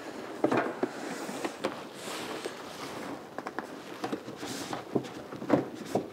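Cardboard packaging being handled: a stiff outer box sleeve rubbing and scraping as it slides off an inner box, with a few light knocks and taps.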